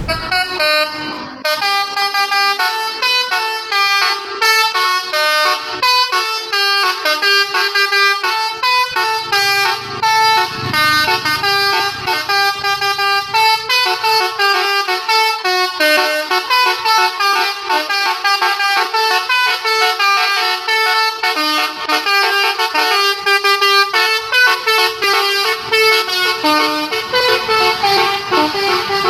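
Bus telolet horn, a set of tuned air horns, playing a quick tune of short stepped notes over and over.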